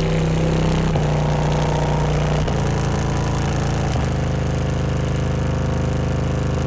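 Sound Qubed HDC4 12-inch subwoofer driven hard on loud, distorted low bass tones that step down in pitch three times. Its cone is folded and about half detached, and it is being played until it fails.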